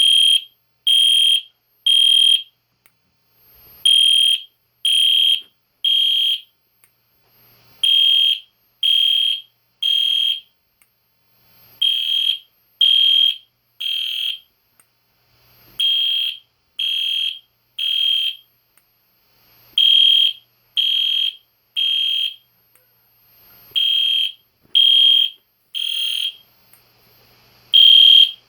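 EST Genesis G1RF-HDVM fire alarm horn sounding in the temporal code-3 pattern: three loud, high-pitched half-second blasts about a second apart, then a pause, repeating every four seconds.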